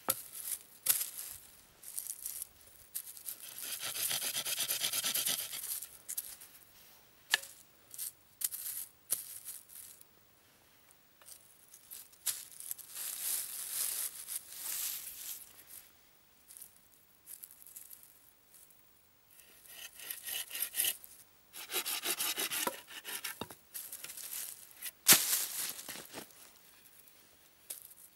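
Dry leaf litter rustling and wooden sticks knocking and scraping as they are handled and laid out on the forest floor, in short bursts with a few sharp wooden knocks, the loudest near the end.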